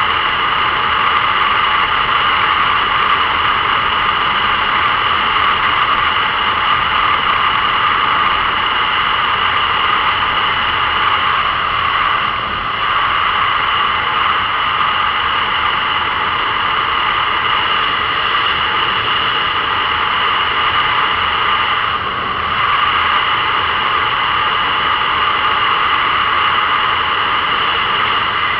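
Motorcycle cruising at steady speed on an open road, heard from on the bike: a constant rush of wind and road noise over the engine. The sound drops briefly twice, about twelve and twenty-two seconds in.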